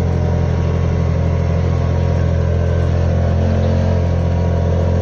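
Vehicle engine running steadily at an even speed, a constant low hum.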